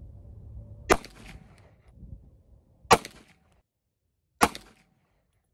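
Three shots from a Kel-Tec PMR-30 .22 Magnum semi-auto pistol: the first two about two seconds apart, the third a second and a half later, each a sharp crack followed by a brief echo.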